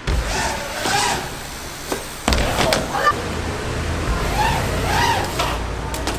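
Steady hiss of heavy rain, with a sudden thud about two seconds in followed by a low rumble, and faint voices in the background.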